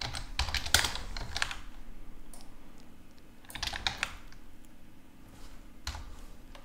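Typing and clicking on a computer keyboard: three short runs of keystrokes with pauses between them, the first near the start, the next about halfway through and a last few clicks near the end.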